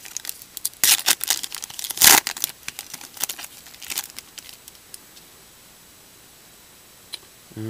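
Foil wrapper of a Panini Elite Extra Edition baseball card pack being torn open and crinkled by hand, a quick run of crackles with the loudest rip about two seconds in. The crinkling stops after about four and a half seconds.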